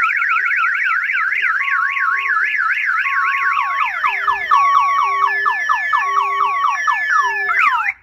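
Aftermarket Excalibur 1510 car alarm siren sounding after being set off on purpose. It starts as a fast up-and-down warble, then about halfway switches to repeated falling chirps mixed with short steady beeps, and cuts off suddenly just before the end when the alarm is disabled.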